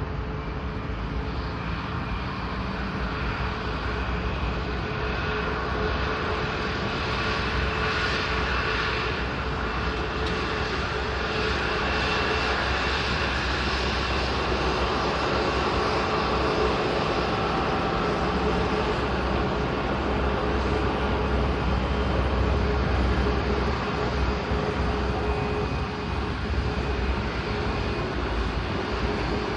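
Boeing 737 MAX 8 jetliner's CFM LEAP-1B turbofan engines running: a steady broad rumble with a constant hum-like tone, swelling slightly in the second half.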